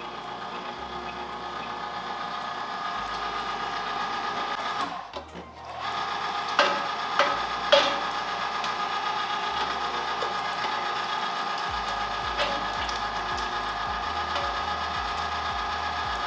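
A Cabela's Carnivore 3/4 hp No. 12 electric meat grinder runs steadily with a fairly quiet motor hum while it grinds chunks of brisket. It stops briefly about five seconds in and starts again. A few sharp knocks come soon after.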